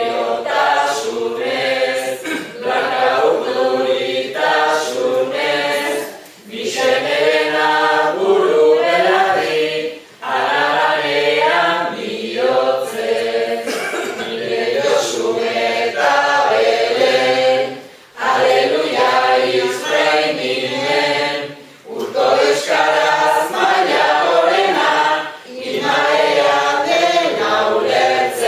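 A group of voices singing Basque verses without accompaniment, in phrases of a few seconds with short breaks between them.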